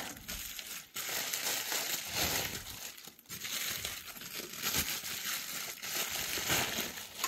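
Packing material crinkling and rustling by hand as a wrapped item is unwrapped, coming and going with short pauses.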